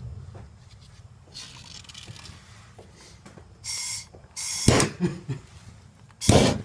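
Handheld gas torch being fired: trigger igniter clicks and several short bursts of gas hiss, one with a faint whistle, the loudest two in the second half.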